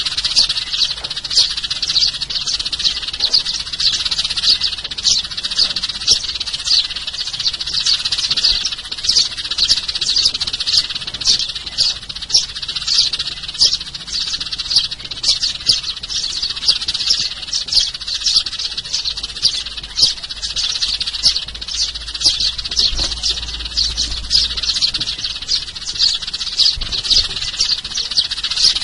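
Sparrows chirping in a continuous, busy chatter of quick overlapping chirps, several notes every second: a sparrow lure recording used to call in birds.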